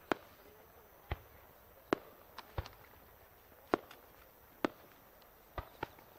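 Aerial fireworks bursting: a string of about nine sharp bangs at uneven spacing, some close together in pairs.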